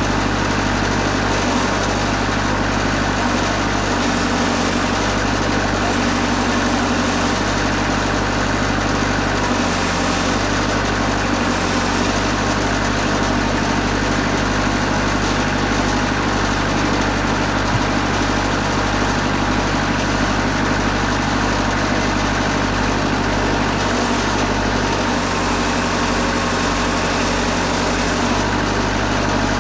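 Engine of a Wood-Mizer LT40 Super Hydraulic bandsaw mill running steadily at an even level.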